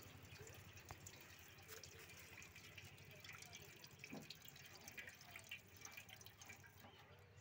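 Faint, scattered drips of diesel falling from the opened fuel pump filter housing into a steel plate, over a very quiet background.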